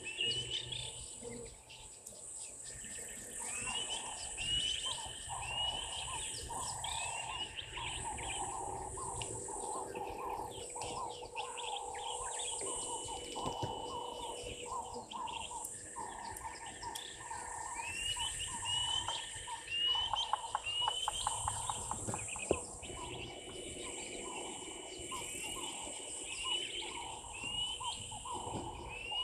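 Bush ambience: a bird repeating a short, curling chirp in runs of several notes, over a steady high insect drone. Some clicks and one sharp knock come about three quarters of the way through.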